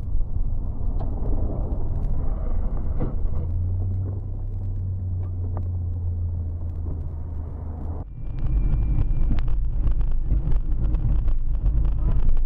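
Road and engine noise from inside a moving car, a steady low hum with faint ticks. About eight seconds in it switches abruptly to a louder, rougher low rumble.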